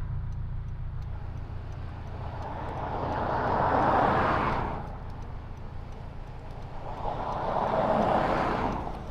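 2022 Honda Civic Si's turbocharged 1.5-litre four-cylinder running under way, with a steady low engine drone. Two swells of rushing noise rise and fall, peaking about four and about eight seconds in.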